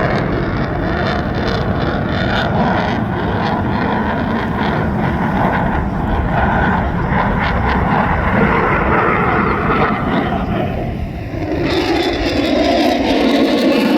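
F/A-18F Super Hornet's twin General Electric F414 afterburning turbofans running loud in a demo pass, a deep rumble with ragged crackle through it. Near the end the deep rumble drops away and a higher rushing sound takes over.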